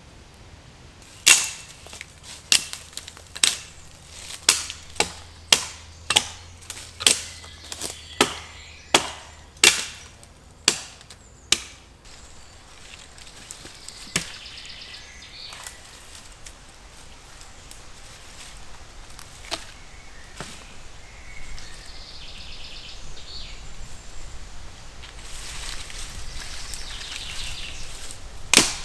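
Axe chopping dead wood: a run of about fifteen sharp, evenly paced strikes over some ten seconds, then a few scattered blows with rustling between them.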